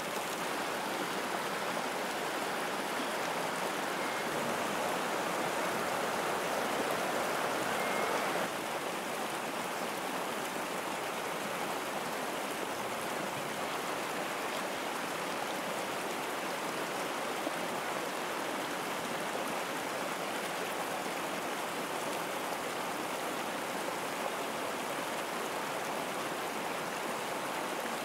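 Steady rush of flowing creek water, an even noise with no breaks, dropping slightly in level about eight seconds in.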